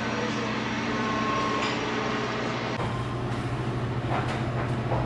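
Steady low hum of indoor ventilation, with a few faint clicks. The hum shifts abruptly about three seconds in.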